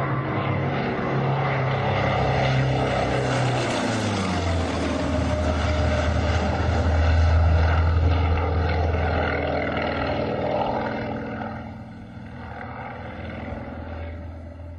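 Propeller-driven aerobatic plane's engine running steadily, its pitch dropping about four seconds in, then fading away after about eleven seconds.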